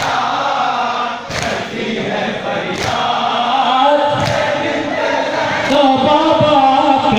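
Men chanting a Shia noha (mourning lament) together, with sharp slaps about every second and a half keeping the beat.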